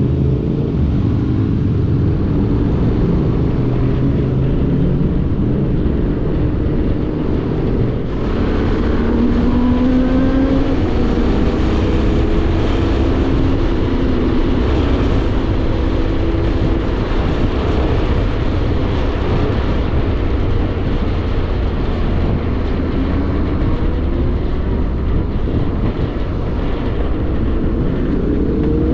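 Motorcycle engine running at road speed under a constant rush of wind noise, its note rising and falling as it speeds up and eases off.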